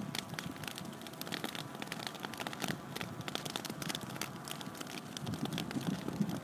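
Dry grass and brush crackling in a prescribed burn, a dense run of sharp pops and snaps over a faint steady hum.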